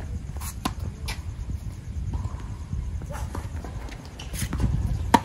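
Tennis rally on an outdoor hard court: a string of racket strikes and ball bounces with the players' footsteps, the sharpest and loudest hit coming near the end.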